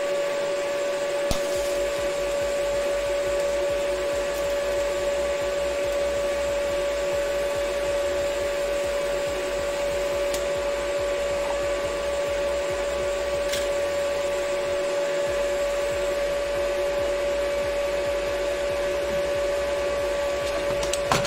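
TIG welding on steel tubing: a steady hum from the welding set with the arc burning, and a few faint clicks.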